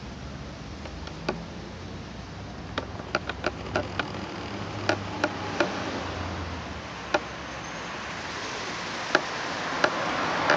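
A steady low engine hum with about a dozen sharp knocks scattered through it, a quick run of them about three to four seconds in, and a rush of noise swelling near the end.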